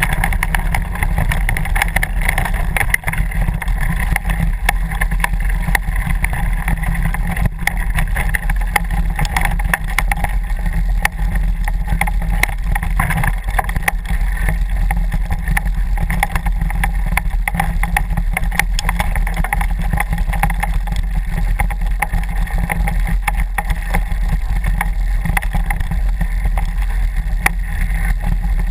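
Mountain bike ridden fast over a dirt forest trail, heard from a camera riding on the bike or rider. A steady low rumble of wind buffeting and tyre noise runs throughout, with frequent small knocks and rattles as the bike jolts over the ground.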